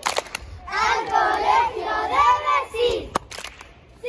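A group of children singing a rhythmic chant together, with a few sharp hand claps. The singing dies away a little before the end.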